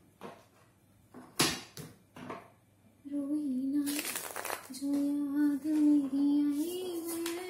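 Tarot cards being shuffled and handled, with a few sharp snaps and riffles. About three seconds in, a woman starts singing a slow melody in an Indian language, holding long steady notes over the shuffling.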